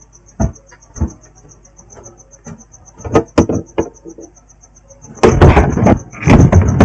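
Handling sounds of work on a laptop motherboard: scattered light clicks and knocks, then loud rubbing and scraping noise from about five seconds in. A faint, rapid high-pitched pulsing, about five beats a second, runs underneath.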